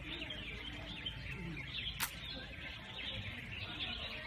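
Many small birds chirping all at once in a busy, continuous twittering over a low background rumble, with a single sharp click about two seconds in.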